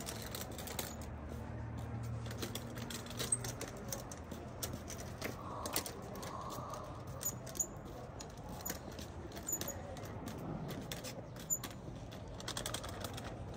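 Street ambience while walking: a steady run of small irregular clicks and light jingling, as of footsteps and things carried, over a low hum that dies away about four seconds in.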